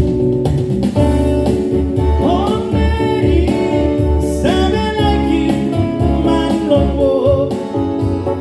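A live band playing a song with a steady drum beat, bass and guitar. A singing voice comes in about two seconds in and carries on.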